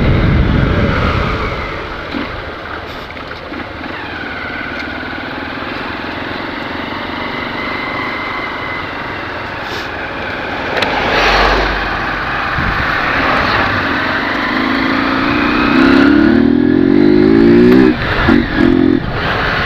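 Honda CG 150 Sport's single-cylinder four-stroke engine running with its air filter removed, with the stock exhaust fitted. Near the end the engine note climbs steadily in pitch under acceleration, then breaks off in a few short dips.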